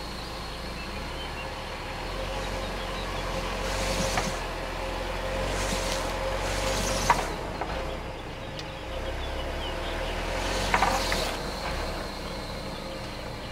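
Mercedes-Benz GLA 250's engine idling as the car creeps backward onto a wooden board and the edge of a tire lying flat, pressing on the tire to break its bead. A sharp crack comes about seven seconds in, with shorter knocks around four and eleven seconds in.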